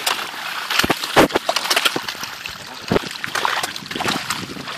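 Water splashing and sloshing as a dense crowd of snakehead fish thrash at the surface while feeding, with sharper, louder splashes about a second in and again around three seconds in.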